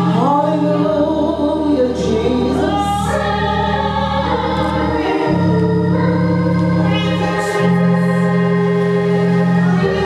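Gospel organ, played on a keyboard, holding chords that change every second or two, with singing over it.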